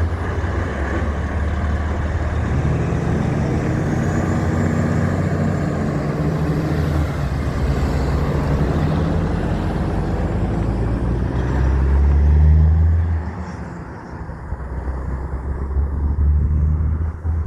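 Heavy truck engine running loud and low, its pitch climbing a few seconds in as it pulls. It gets louder about twelve seconds in, drops back, then surges again near the end.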